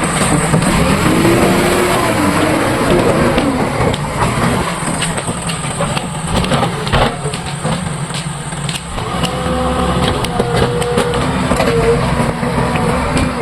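JCB 3DX backhoe loader's diesel engine running hard and revving as it works, with scattered knocks and clatter.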